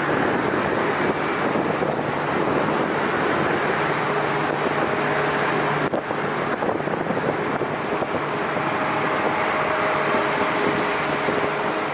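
Distant jet engine noise from an Airbus A380 taxiing on its four Rolls-Royce Trent 900 engines at low power: a steady hiss with a low hum. Faint, steady whining tones come in about four seconds in.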